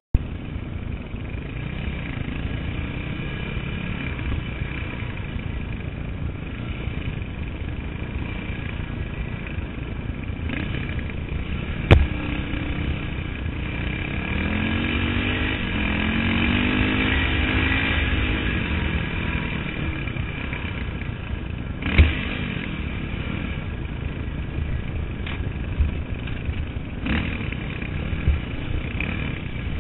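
KTM 450 EXC dirt bike's single-cylinder four-stroke engine running under load, heard from a helmet-mounted camera, its note rising and falling with the throttle and loudest around the middle. Sharp knocks about 12 and 22 seconds in, with a few lighter ones near the end.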